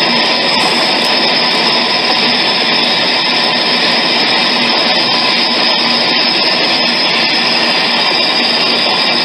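Steady, dense electronic noise drone with a thin high tone running through it, held at an even level without breaks.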